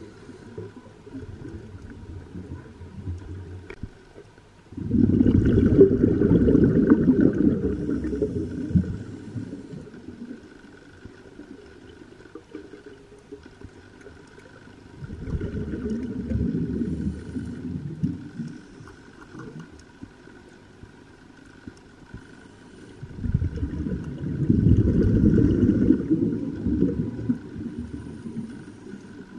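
A scuba diver breathing through a regulator, recorded underwater: exhaled bubbles rumble in three long bursts several seconds apart, over a low background rumble and a faint steady high tone.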